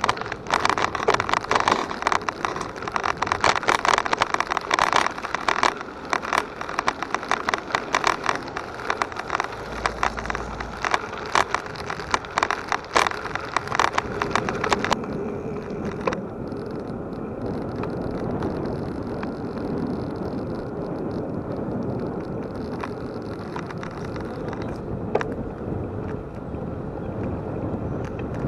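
Bicycle tyres rolling over a rough dirt and gravel trail, a dense crackle of grit and rattling, which changes about halfway through to a smoother, steady rolling noise on paved asphalt.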